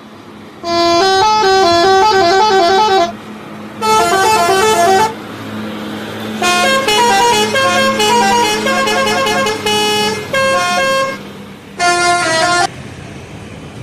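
Indonesian bus telolet horn playing its tuned multi-note melody in five bursts of varying length, the notes stepping up and down in pitch, over a low steady hum.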